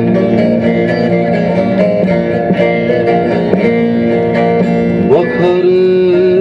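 Turkish folk music: a plucked string instrument plays a melody of short notes, and about five seconds in a long held note glides up and enters over it.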